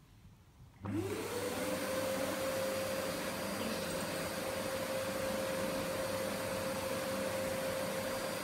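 Vacuum cleaner switched on about a second in: its motor spins up with a quickly rising whine that settles into a steady tone, then keeps running over an even rush of air.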